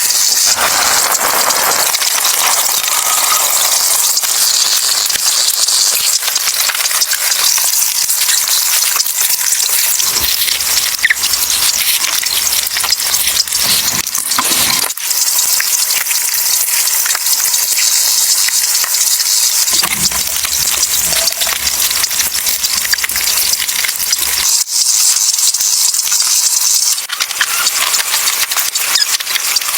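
A steady, dense crackling hiss with many small pops, broken by brief cuts about halfway through and near the end.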